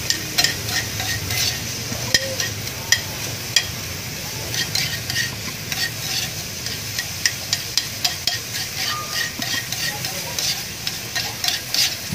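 Chicken and sliced onion sizzling in a hot iron pan while a spatula stirs them, scraping and clicking against the pan many times at an irregular pace.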